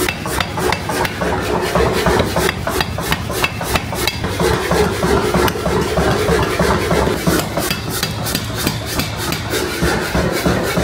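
Rapid, repeated hammer strikes on steel during forging, several blows a second, over a steady low machine hum.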